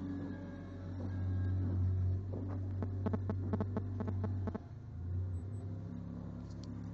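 Avant 630 compact loader's diesel engine running steadily under work, with a quick run of rattling knocks, about five a second, in the middle, after which the engine note drops and changes pitch.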